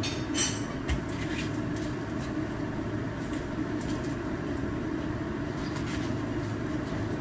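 Steady fan hum with scattered light clicks and rustles as leafy greens are handled on a kitchen counter.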